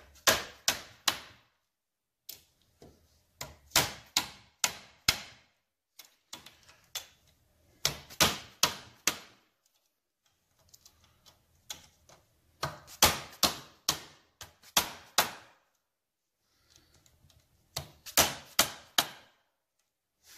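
Hand impact driver struck with a mallet to tighten the Phillips-head screws of a Triumph 650 timing cover: sharp metallic knocks in short runs of three to five blows, with a brief pause between runs as the driver moves to the next screw.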